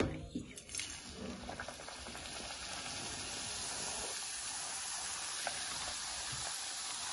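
Moong dal dough cutouts sizzling as they deep-fry in hot oil in a kadhai. The sizzle builds about a second in, as the pieces go into the oil, and then holds steady.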